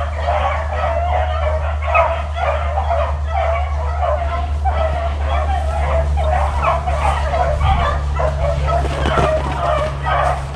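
A pack of beagles baying in full cry, many voices overlapping without a break, as the hounds run a rabbit. A steady low rumble sits underneath.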